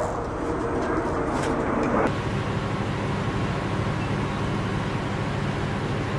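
Steady drone of flight-line ground-support machinery running near a B-1B bomber. About two seconds in it switches abruptly to a lower, steadier hum.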